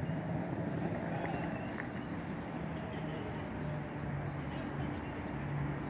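Steady hum of a Class 350 electric multiple-unit train at a station platform, over general platform background noise.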